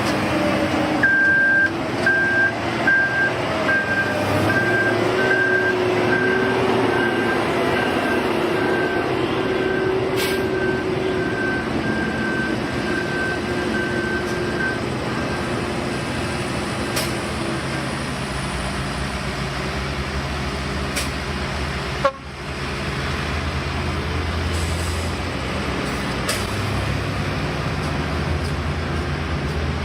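Heavy road-construction machinery with diesel engines running steadily. A reversing alarm beeps at a high pitch about twice a second, fading out about halfway through.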